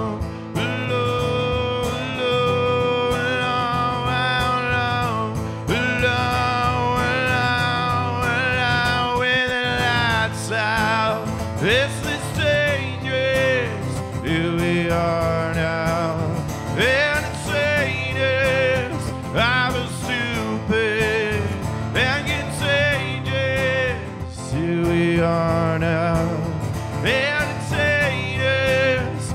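A man singing along to his own acoustic guitar, in long held notes that waver in pitch rather than clear words.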